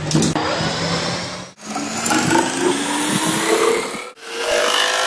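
A machine's motor running with a whine that climbs slowly in pitch, the sound cutting out sharply twice for a moment.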